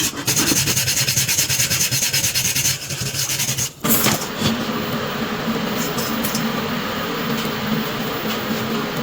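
Rapid, even rasping or scraping, as of a file or abrasive working a surface. It stops briefly about four seconds in and gives way to a steady machine hum.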